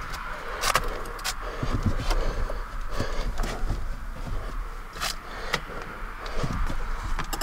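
Someone crawling across attic joists and loose insulation: irregular scrapes, rustles and knocks, with a few sharp clicks, over a steady mid-pitched hiss.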